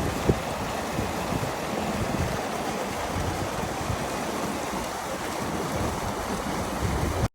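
Small mountain stream rushing steadily over its bed, with uneven low buffeting on the microphone.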